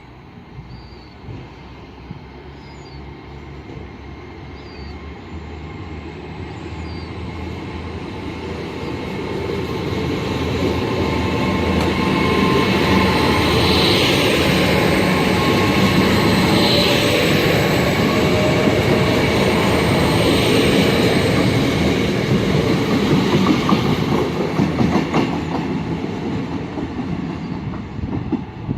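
A passenger train approaching and passing close by on the rails, growing steadily louder over about ten seconds, with wheels clicking over the rail joints, then easing slightly near the end.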